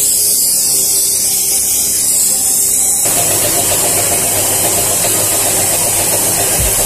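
A motor-driven machine blowing air, running steadily with a loud hiss; about three seconds in its sound grows fuller and rougher.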